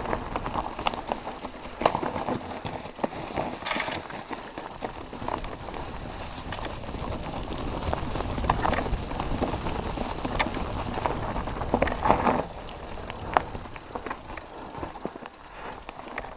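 Mountain bike descending a rocky trail: tyres rumbling over rock and loose stones, with frequent sharp clicks and knocks as the bike rattles over the bumps.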